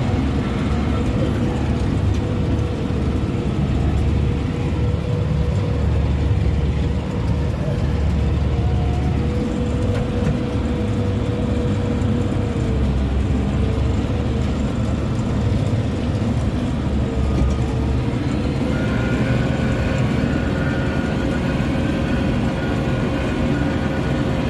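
Tractor engine running steadily while baling hay, a low rumble with a whine that drifts slightly in pitch.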